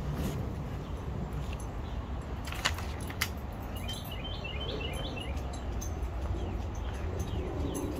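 Outdoor ambience: a steady low rumble, with a bird giving a quick run of high chirps about halfway through and two sharp clicks, half a second apart, a little before that.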